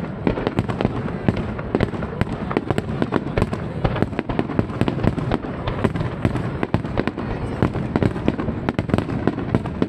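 Aerial fireworks shells bursting in a rapid barrage during the show's finale: sharp bangs several a second, overlapping into a continuous rumble.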